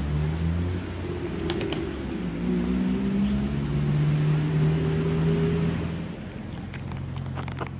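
A motor engine running, its pitch slowly rising and falling before fading near the end, with a few short clicks.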